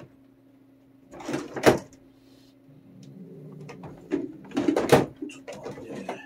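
An angry, fearful cat hissing and spitting twice, about a second in and again near five seconds, each burst ending in a sharp knock, over a steady low hum.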